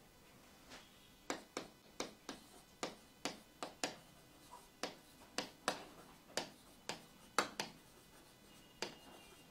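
Marker pen tapping and stroking on a whiteboard while words are written: a run of short, sharp taps, about two a second, starting about a second in and stopping near the end.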